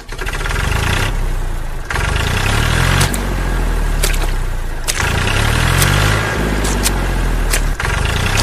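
Vehicle engine running and revving in repeated surges, its pitch rising every couple of seconds, with a few sharp clicks over it.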